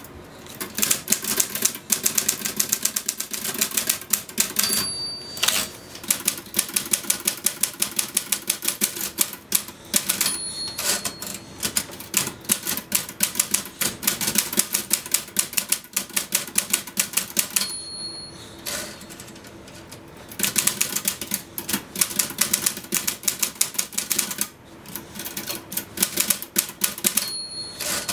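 Typewriter being typed on fast and continuously, a dense run of sharp keystroke clacks. Four times a short bell rings near the end of a line, each followed by a brief pause for the carriage return before the typing resumes.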